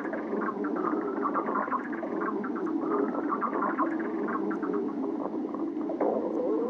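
Stomach growling: a continuous gurgling rumble broken by many quick bubbling pops, with a sudden louder gurgle near the end.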